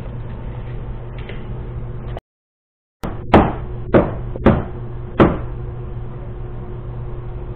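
Rubber mallet tapping the top edge of a UTV windshield where it seats against the roll-cage clamp. Four sharp knocks come in the second half, roughly half a second apart, over a steady low hum.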